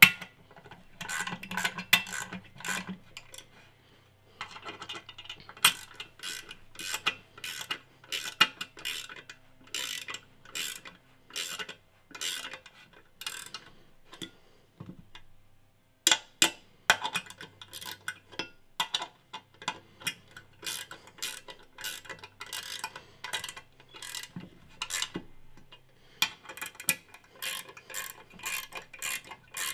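Small ratcheting wrench clicking in quick runs as the bolts holding the compressor housing to a Garrett GTX3582 turbo are run down snug, with a short pause about halfway through.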